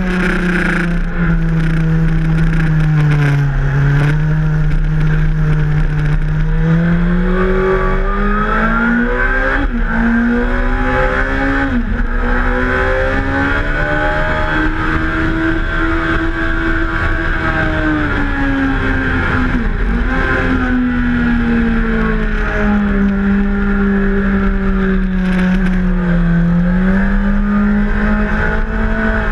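Suzuki GSX-R1000's inline-four engine running hard on track, its pitch climbing and falling with the revs through the corners, with a few sudden steps in pitch at gear changes.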